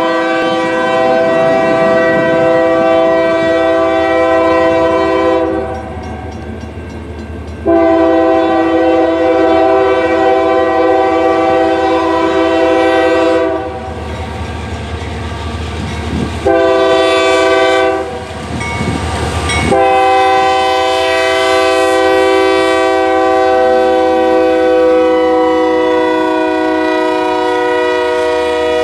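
Union Pacific freight locomotive's multi-note air horn sounding the grade-crossing signal: two long blasts, a short one, then a final long blast held for about nine seconds as the locomotive reaches the crossing. A low rumble from the approaching train runs underneath.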